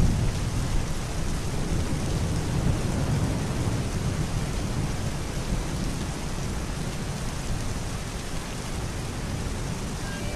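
Steady rain with a low roll of thunder, loudest in the first few seconds and slowly dying away.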